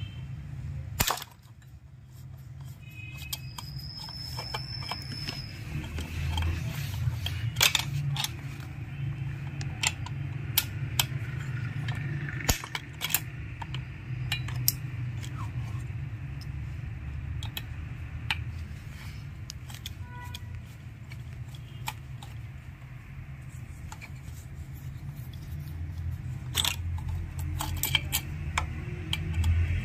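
Screwdriver working the ignition coil's mounting screws on a chainsaw: scattered small metallic clicks and scrapes as the screws are loosened, over a steady low hum.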